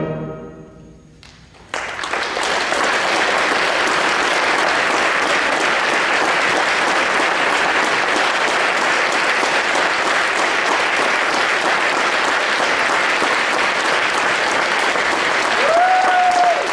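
A school brass band's final chord dies away in the hall's reverberation, then the audience applauds steadily. A brief high call rises above the clapping near the end.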